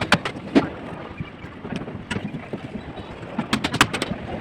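Irregular sharp knocks and clanks of work on column shuttering, two loud strikes at the start and a quick run of about six a little past three seconds in. A steady hiss lies underneath.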